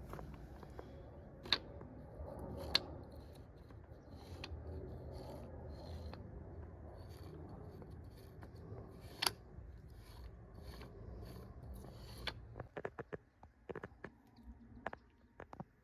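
Scattered light clicks and taps, with a faint row of ticks about two a second, over a low steady hum that stops about three-quarters of the way through.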